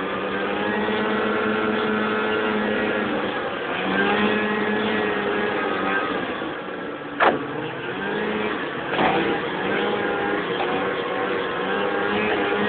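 Lynx GLX snowmobile engine running under way, its pitch rising and falling with the throttle. A sharp knock comes about seven seconds in and a smaller thump about two seconds later.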